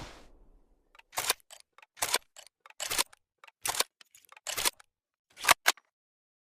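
Bolt action of a Springfield M1903A1 rifle being worked by hand after a shot: about a dozen sharp metallic clicks and clacks in uneven groups, the loudest a little past five seconds in.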